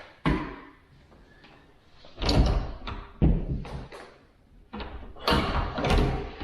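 A series of about five knocks and thumps from handling a kitchen cabinet box and setting it on its wall rail.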